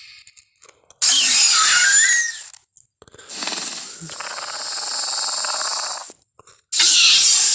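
Velociraptor sound effects: a shrill screeching call with sliding pitch about a second in, then a longer raspy hiss lasting about three seconds, then another loud shriek starting near the end.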